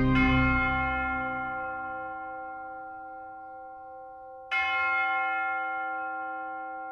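Church bell struck twice, about four and a half seconds apart, each stroke ringing on and slowly fading.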